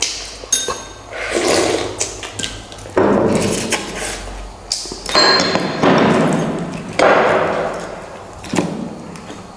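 Instant noodles being slurped noisily, in several loud swells that each fade over a second or two, with short clinks of bowls and chopsticks in between.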